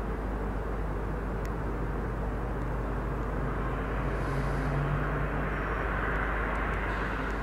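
Steady outdoor rumble of engines or machinery with a low hum that swells about four seconds in, then a rising hiss near the end.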